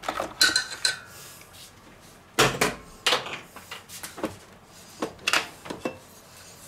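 Irregular clanks and knocks of a stand mixer's stainless steel bowl being handled, a gloved hand scraping dough and the bowl knocking against the mixer, some strikes ringing briefly.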